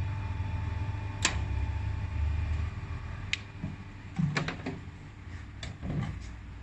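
Low steady hum of a laser welding machine's water chiller running, dropping off about two and a half seconds in, with a few sharp clicks and knocks of handling.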